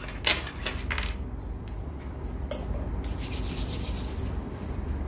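Soft rubbing and scraping noise with a few light knocks, over a steady low hum.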